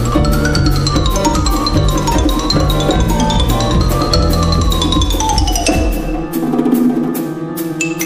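Background music: a wandering melody over deep bass and a steady percussive beat. About six seconds in the bass drops out, leaving separate struck notes.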